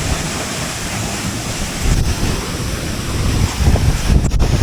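A big waterfall pouring, heard up close, with wind buffeting the microphone in gusts that grow stronger near the end.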